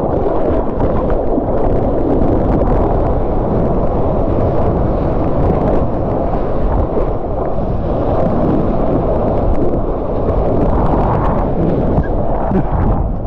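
Steady rumble of a motorboat under way, with wind buffeting the microphone and water rushing past the hull.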